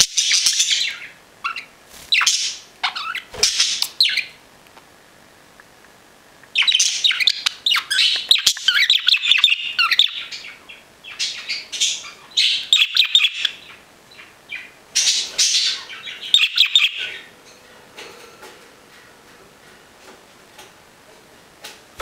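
Budgerigar chattering and warbling in bursts of fast high chirps, with quiet gaps between them; the longest run comes from about six to ten seconds in.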